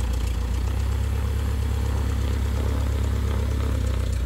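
Piston aircraft engine running steadily on the ground, an even low drone with no change in pitch or level.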